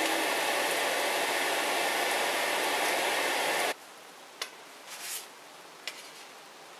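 A steady hiss at the stove while pancakes cook in a frying pan, cutting off abruptly about halfway through. After it come two light clicks and a short scrape of a spatula on a metal baking sheet as the pancakes are set down.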